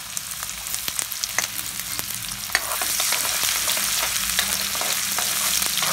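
Chopped onion sizzling in hot oil in a kadai, stirred with a steel ladle that clicks and scrapes against the pan. The sizzle grows louder about two and a half seconds in.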